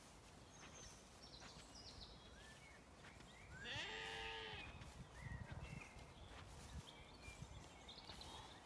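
A Zwartbles sheep bleats once, a single wavering call about a second long near the middle, over faint high bird chirps.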